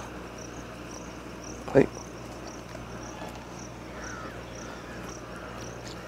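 Insects chirping steadily, a short high chirp about twice a second, with a brief vocal sound just under two seconds in.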